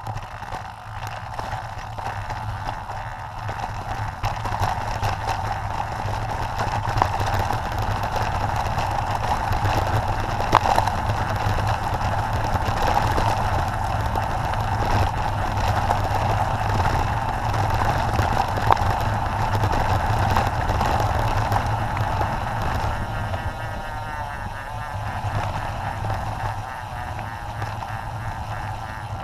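Mountain bike descending a loose, rocky gravel trail: tyres rolling and crunching over stones and the bike rattling, with a steady low rumble and occasional sharp knocks as it hits rocks.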